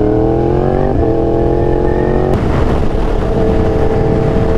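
Yamaha R1 sportbike's inline-four engine through an SC-Project exhaust, heard from the rider's seat with wind rushing past: the revs climb, drop with an upshift about a second in, and climb again. About two seconds in they fall away and settle to a steady cruising note.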